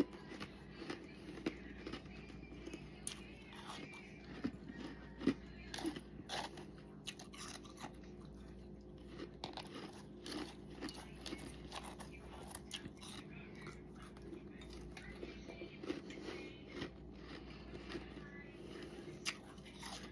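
A person biting and chewing crunchy frost, with many sharp crunches at irregular intervals through the whole stretch.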